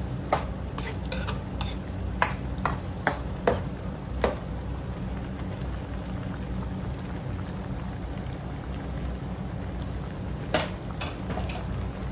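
Metal ladle clinking and scraping against a wok as a pork and liver stew is stirred: a quick run of clinks at first, then the stew simmering with a steady hiss and bubble, and a few more clinks near the end.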